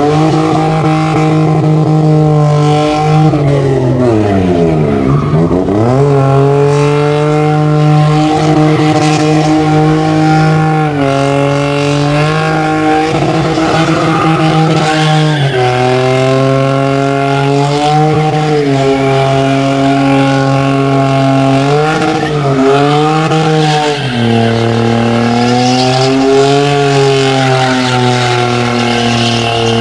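BMW E30's engine held at high revs during a burnout, its rear tyres spinning and squealing. The engine pitch dips and climbs back several times, with the deepest drop and recovery about four to six seconds in.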